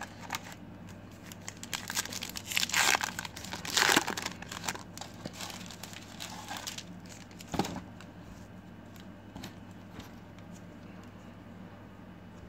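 A foil trading-card pack wrapper being torn open and crinkled by hand: a few seconds of loud crackling, then lighter rustling and one sharp click.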